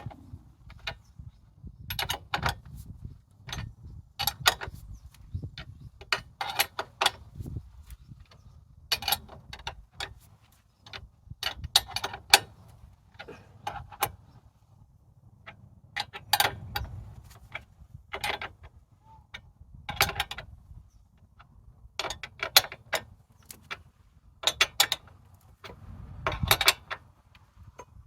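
Hand tools clicking and ratcheting on metal as the knee-return apparatus is fastened to the sawmill. Short runs of sharp clicks come every second or two.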